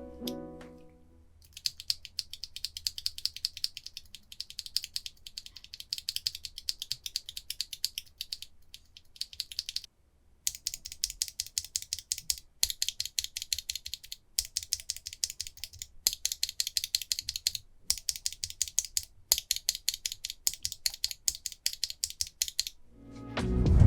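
Fast typing on a mechanical keyboard fitted with stock, unlubed Holy Panda tactile switches: dense runs of sharp key clicks lasting several seconds each, separated by brief pauses.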